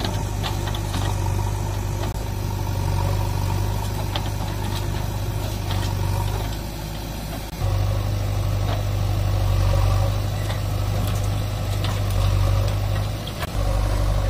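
Diesel engines running steadily: a JCB backhoe loader working its digging arm, with a Swaraj 744 FE tractor idling. The hum drops off briefly twice, about six and a half seconds in and near the end, and comes back abruptly.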